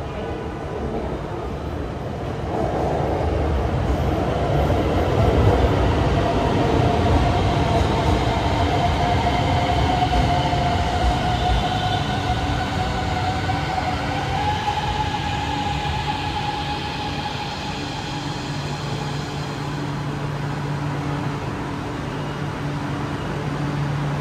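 Hanoi Metro Line 2A electric trains at a station: one pulling out and another rolling in, with wheel rumble and a whining electric motor that shifts up in pitch through the middle. A steady low hum follows in the second half as the train stands at the platform.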